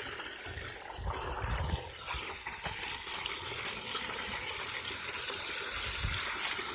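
Hot oil in a propane turkey fryer bubbling and sizzling steadily around a freshly lowered turkey, with a few low rumbles underneath.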